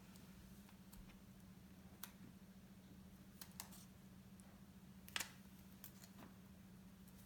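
Near silence over a low steady hum, with a few faint clicks and taps from the iPhone box and its packaging being handled, the sharpest about five seconds in.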